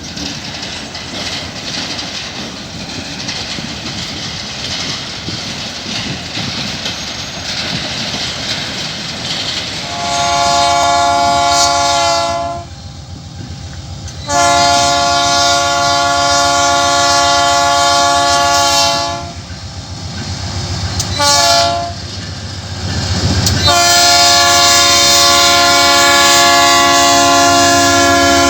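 Diesel freight train running by with a steady rumble of engines and wheels, then a locomotive's multi-chime air horn sounds two long blasts, a short one, and a final long one.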